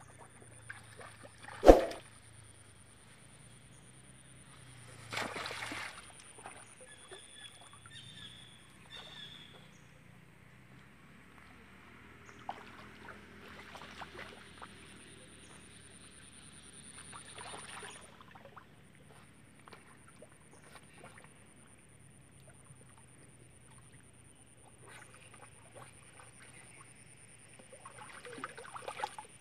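Faint river water sloshing and splashing as an animal swims through it. There is a sharp knock about two seconds in, brief high chirps around eight seconds in, and a faint steady high whine.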